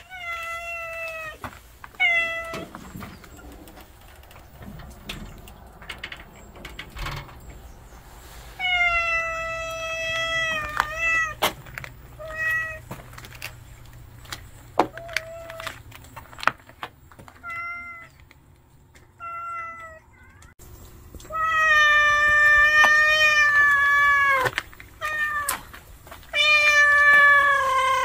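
Calico cat meowing over and over, a dozen or so whiny calls, some short and some drawn out to two or three seconds, the last one sliding down in pitch. The meows are demanding calls urging the person to follow it.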